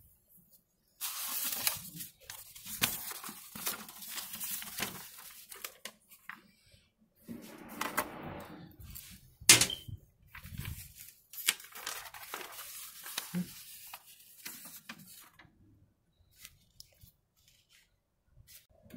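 Paper instruction sheet rustling and crinkling as it is handled inside a metal file safe, with a sharp click near the middle. The rustling dies down after about fifteen seconds.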